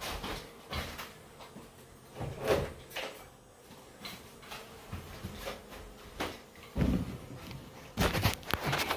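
Scattered knocks and thumps of someone moving about and handling things in a room, with a louder run of knocks near the end.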